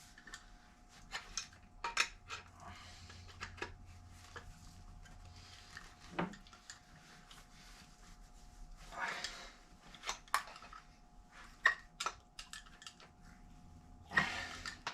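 Scattered metallic clicks and clinks of a wrench and a Rochester throttle body being worked on a workbench, as seized fuel inlet fittings are forced loose. A couple of longer scraping bursts come about nine seconds in and near the end.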